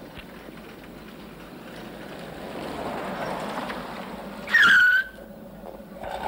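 A car approaching, its road noise swelling, then a loud high squeal about half a second long, bending down in pitch, that cuts off abruptly.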